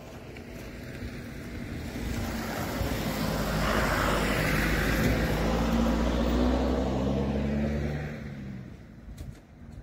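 A motor vehicle passes close by on the road, its engine and tyres growing louder, loudest about halfway through, then fading away within a couple of seconds.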